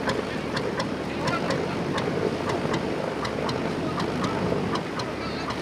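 Engine of a WWII amphibious truck running steadily as it motors past on the river, with regular sharp ticks about four times a second over the engine and the wash.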